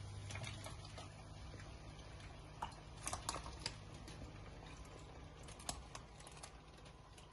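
Potato wedges dropped by hand into a stainless steel pot of boiling water for parboiling: a scatter of small splashes and knocks, the loudest a quick cluster about three seconds in.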